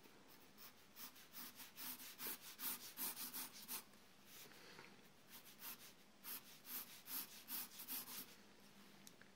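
Pencil sketching on paper: faint, quick scratchy strokes in short runs, with a brief lull about four seconds in.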